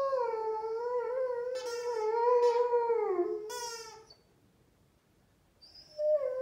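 Rhodesian ridgeback 'singing' with its squeaky ball toy: a long, wavering high-pitched squeal that fades out a little past halfway, then after a short gap a second squeal starts near the end.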